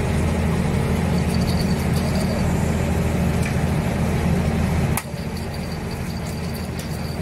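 Boat engine running steadily with a low, even hum. A sharp click comes about five seconds in, after which the sound is quieter.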